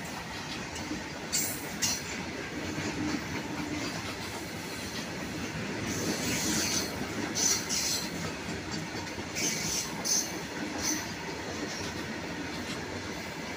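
Covered freight wagons rolling past at speed, a steady rumble and rattle of wheels on the rails, with brief high-pitched bursts from the wheels several times.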